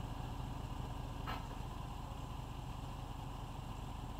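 A steady low hum, with one short sharp clank about a second in as a metal boat jack stand is set down by the hull.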